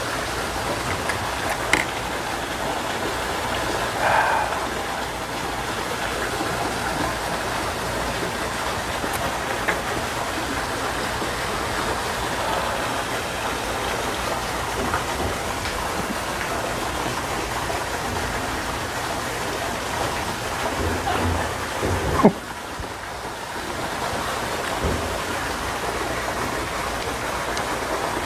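Steady rain falling, an even hiss, with a few light clicks of a metal spoon against a bowl.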